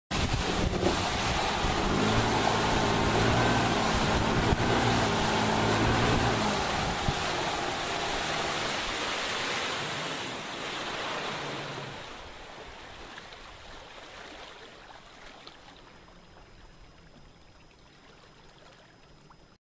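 Bass boat's outboard motor running at speed over a loud rush of water and air off the hull. The engine note weakens after about six seconds and is gone by about twelve, and the whole sound fades steadily as the boat slows down.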